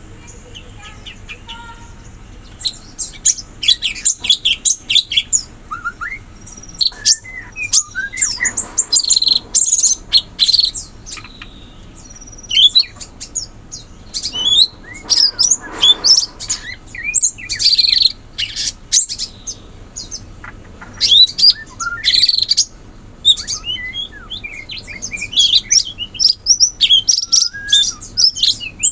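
Cucak cungkok birds calling in forest: rapid runs of high chirps and short whistled notes, in clusters with brief pauses between.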